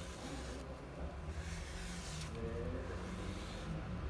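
Soft, faint wiping strokes of a cloth or applicator rubbing restorer into interior plastic, each a short hiss lasting under a second, over a low steady hum.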